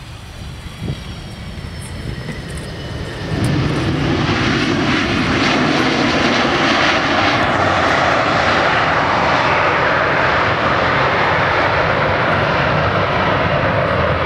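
McDonnell Douglas MD-88 airliner landing. Its rear-mounted Pratt & Whitney JT8D engines run quietly with a faint falling whistle through touchdown, then about three seconds in they spool up suddenly into reverse thrust and stay loud and steady through the rollout.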